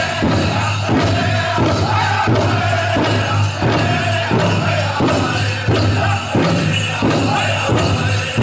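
Powwow drum group singing a chicken dance song, with high-pitched singing over steady strokes on a big drum, about one and a half beats a second. A steady low hum sits underneath.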